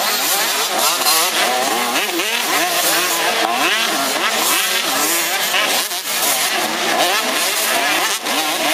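Several two-stroke 85 cc motocross bikes racing, their engines revving hard and overlapping, each pitch repeatedly rising and falling as the riders work the throttle and shift gears.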